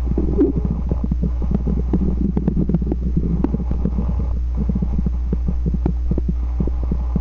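Stomach growling: continuous gurgling rumbles broken by many quick pops and clicks, over a steady low hum.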